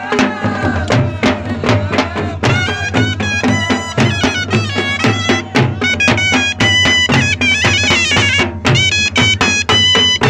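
Live folk dance music: a reed pipe playing a melody of held, stepping notes over a steady drumbeat, the pipe turning loud and bright about two and a half seconds in.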